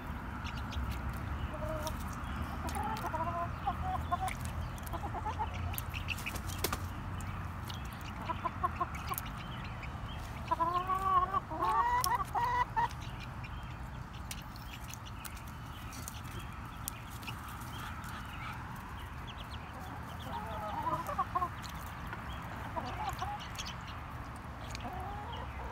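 Hens clucking in short rising-and-falling calls that come in clusters, the loudest run about halfway through. Scattered sharp clicks come through as they peck into a steel water bowl.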